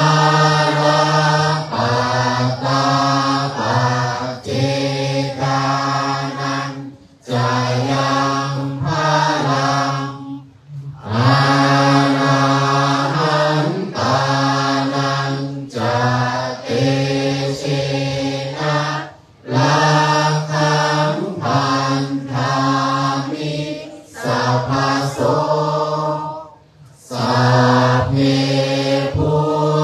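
Buddhist monks chanting Pali verses together in unison, in a steady recitation on a few held pitches. The chant comes in long phrases broken by short breath pauses.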